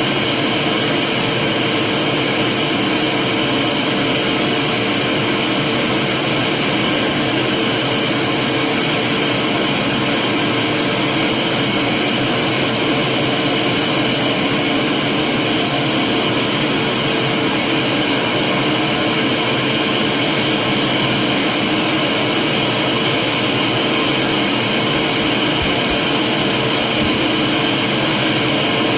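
Vacuum cleaner running steadily: an even rushing noise with a constant high whine, unchanged throughout.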